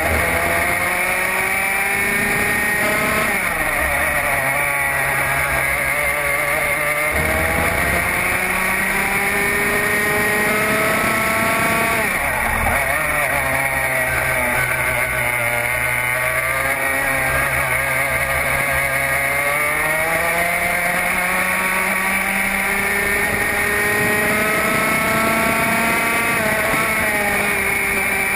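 Racing kart engine at full race pace, heard on board: its revs climb steadily along each straight and drop sharply off the throttle into the corners, about four times.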